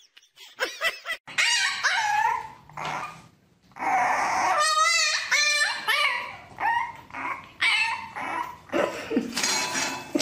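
Dog whining and yipping. A couple of gliding calls come in the first three seconds, then after a short pause a quick run of short, rising-and-falling whines and yips, one with a rapid waver.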